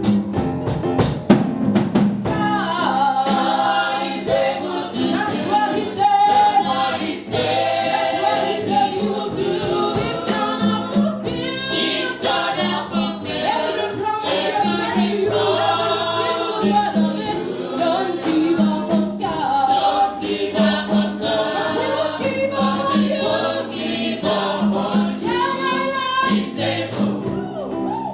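Gospel music: singers with band accompaniment, drums and tambourine keeping a steady beat.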